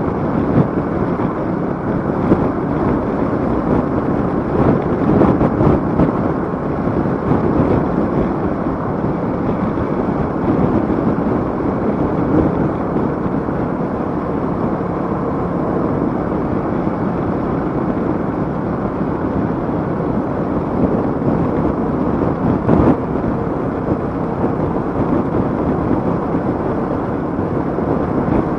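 Motorcycle engine running at a steady cruising speed, mixed with wind rush on the rider's microphone.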